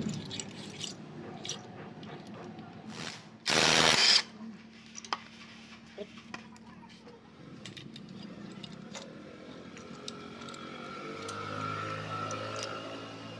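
Scattered metal clicks and clinks from a motorcycle's wet multi-plate clutch being taken apart by hand, with one loud noisy burst, under a second long, about three and a half seconds in. A faint steady hum comes in near the end.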